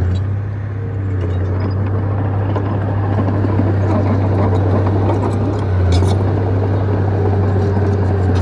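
Crawler bulldozer's diesel engine running steadily under load, a deep constant drone, with scattered light metallic clicks and rattles over it.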